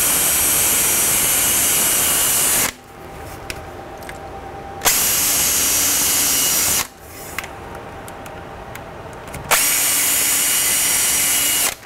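Makita cordless drill running at a steady speed, boring holes into chair rail molding. It runs three times, for two to three seconds each, with short pauses of small clicks and handling between the runs.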